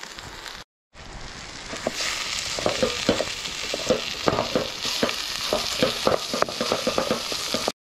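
80/20 ground beef sizzling in hot butter and onions in a small frying pan. From a few seconds in, a wooden spatula scrapes and knocks against the pan as the meat is broken up.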